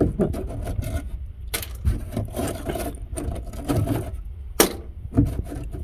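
A rusted sheet-metal strip along a van's lower side panel being pulled and worked loose by hand: irregular scraping, crackling and clicks of flaking rust and metal, with one sharp snap a little past the middle. The strip is coming away because it was never properly welded, only pulling away from its sealer.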